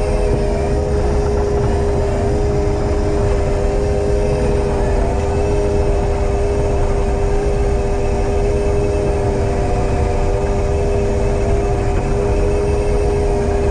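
Heavy diesel forestry machine running steadily under power, a constant low rumble with a steady whine over it.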